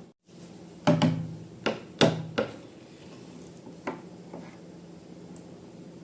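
A handful of sharp taps and clicks, as of hard objects being handled or set down, in a quick cluster about a second in and two more around four seconds in, over a steady low hum.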